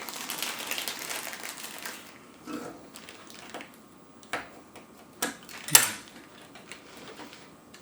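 Plastic keycaps being handled on an Amiga keyboard: about two seconds of rustling and scraping, then a string of separate sharp plastic clicks, the loudest near the end.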